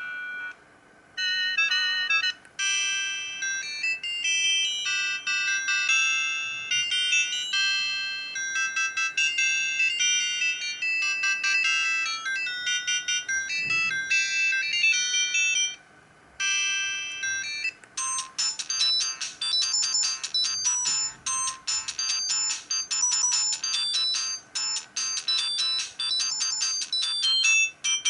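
Siemens CL50 mobile phone playing its built-in ringtones through its own speaker, melodies of electronic beeping notes. One tune breaks off about sixteen seconds in, and from about eighteen seconds a faster tune of rapid high notes follows.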